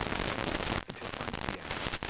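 Harsh, dense crackling static with no voice in it, steady apart from a brief dip just under a second in.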